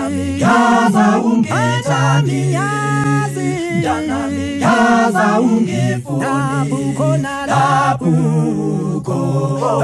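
A cappella vocal group singing in close harmony, with no instruments: low bass voices hold long notes under moving higher parts, phrase after phrase with short breaths between.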